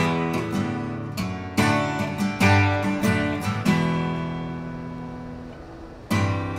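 Solo guitar improvisation. A run of plucked notes and strums fills the first half, then a chord rings out and fades for about two seconds before a fresh strummed chord near the end.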